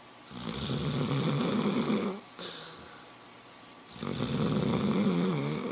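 A sleeping dog snoring: two long snores of about two seconds each, some two seconds apart.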